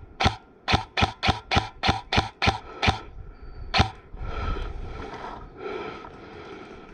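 Airsoft gun fired in quick single shots, about ten in the first four seconds, roughly three a second, with a short pause before the last shot.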